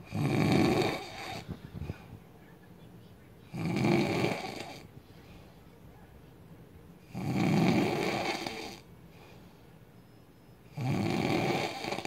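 A sleeping man snoring loud, four long snores about every three and a half seconds with quiet gaps between.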